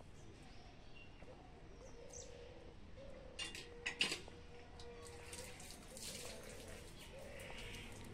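Faint bird chirps, with two sharp clicks of small items being handled about halfway through.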